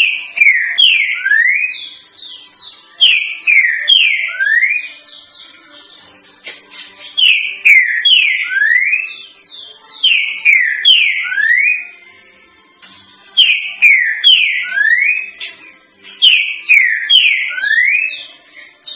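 Green-winged saltator (trinca-ferro) singing the 'três notas boi' song type: short phrases of loud descending notes that end in a rising note, repeated about every three seconds with brief pauses between.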